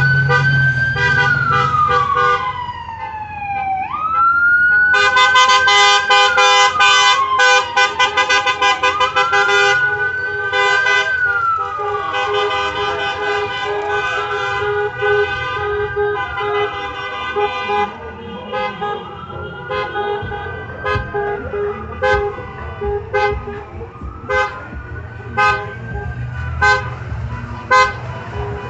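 A siren wailing, rising and falling about every five seconds and growing fainter, with car horns honking over it: a rapid string of honks about five seconds in, then single honks every second or so near the end, over the low rumble of vehicles driving slowly past.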